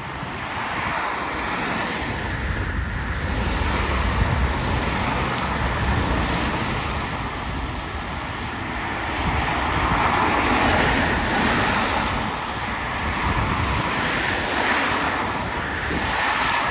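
Cars passing one after another on a wet road, tyres hissing in repeated swells, with wind buffeting the microphone. Underneath, the three engines of a Dassault Falcon 7X business jet run at take-off power, a steady rumble with a faint thin whine.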